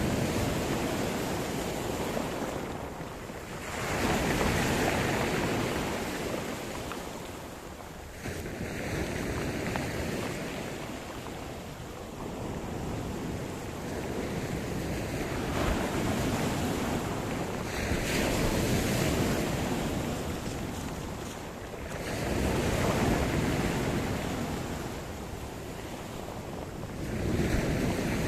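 Sea surf: waves breaking and washing up the shore, the rushing hiss swelling and falling back every few seconds.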